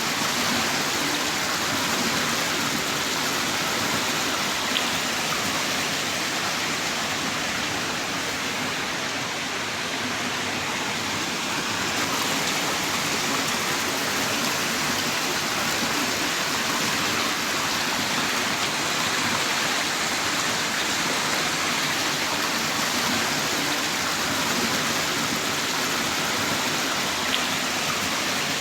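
Heavy rain pouring down in a steady, even hiss, with a couple of faint drop ticks.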